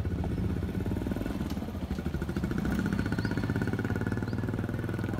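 A small engine running steadily, with a fast, even low putter.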